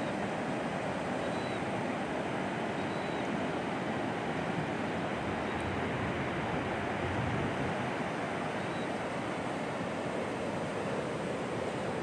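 Atlantic surf breaking on a sandy beach: a steady, unbroken rush of waves, with some wind on the microphone.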